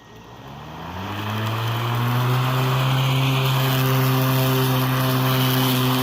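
Hart 16-inch 20-volt cordless electric lawn mower starting up: the motor and blade spin up with a rising whine over the first couple of seconds, then run at a steady full-speed hum on a freshly installed battery.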